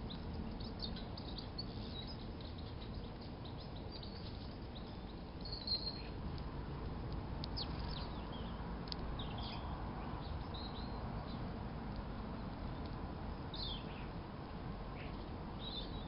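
Small garden birds chirping and calling in short, scattered high notes over a steady low background rumble.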